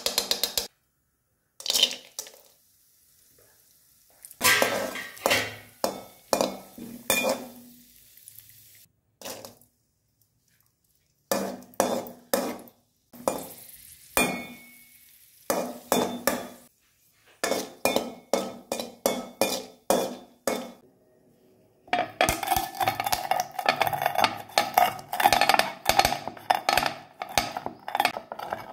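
A metal spatula scraping and tapping in an aluminium pan in runs of repeated strokes as raisins are fried in ghee. From about two-thirds of the way in, a wooden rolling pin crushes cardamom on a steel plate in a dense, fast clatter of strokes.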